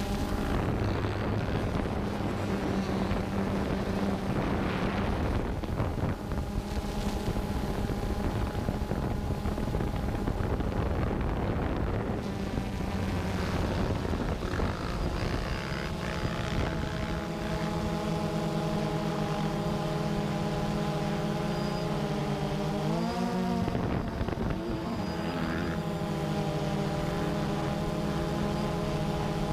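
Drone's motors and propellers whining steadily, with a brief rise and fall in pitch about three-quarters through as the motors change speed.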